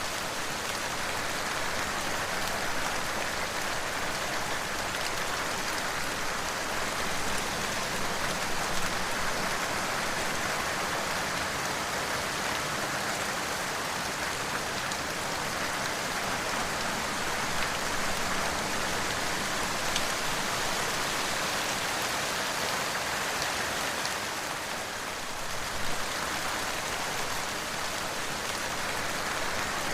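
Steady rain falling on a surface, with a dense, even patter of drops and a few sharper drop clicks.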